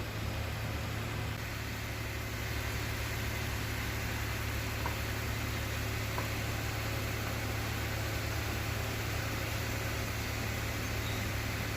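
Inverter stick welder's arc burning steadily: an even hiss over a low hum.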